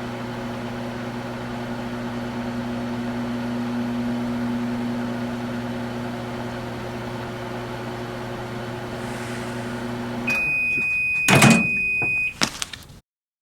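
Microwave oven running with a steady hum that stops about ten seconds in, followed by a long single beep as the cycle ends. A loud clunk comes during the beep.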